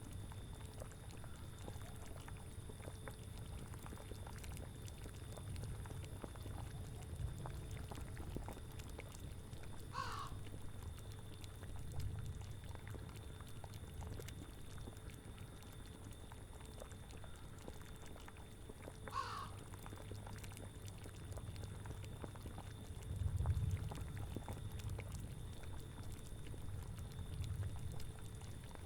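Low, steady bubbling of a boiling cauldron, swelling louder briefly about two-thirds of the way through. A crow caws twice, about nine seconds apart, each a short falling call.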